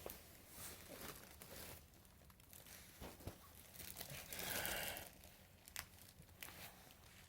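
Faint rustling and crinkling of fan packaging being handled, with scattered light clicks and knocks. A louder rustle comes about four and a half seconds in and lasts under a second.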